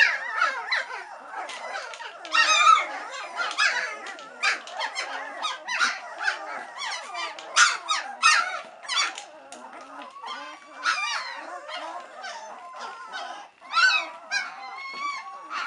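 A litter of three-week-old White Swiss Shepherd puppies whining and crying, many short high-pitched calls overlapping one another: hungry puppies impatient for their mother to return and feed them.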